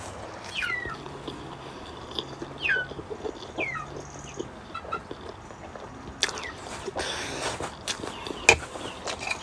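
Several short, thin chirps from farmyard birds, each falling in pitch, in the first few seconds. A few sharp clicks follow in the second half.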